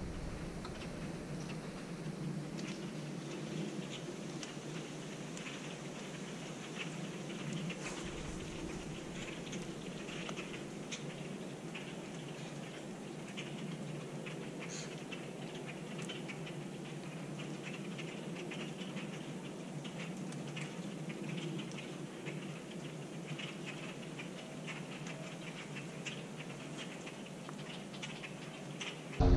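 Dry leaf litter rustling steadily in the woods, dotted with many small irregular ticks and crackles.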